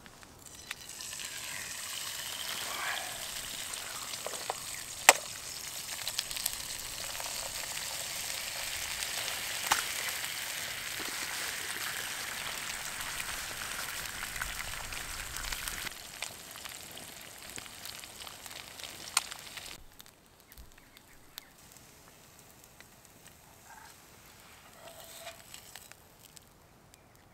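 Eggs frying in a hot non-stick frying pan over a wood stove: a steady sizzle, with a few sharp clicks. The sizzle stops about two-thirds of the way through, leaving only faint sounds.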